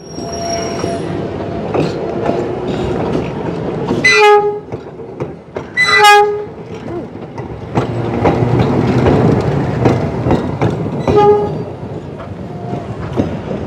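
Steam locomotive whistle sounding three short blasts, the last one shortest, over the steady rumble and clatter of the train running.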